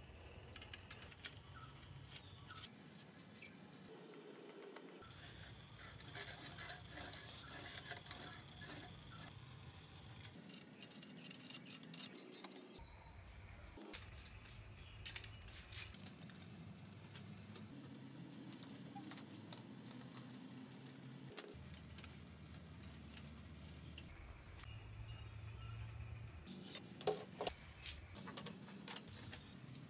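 Faint clinking and tapping of small metal parts being handled, in a string of short clips that cut abruptly from one to the next, with a few sharper ticks near the end.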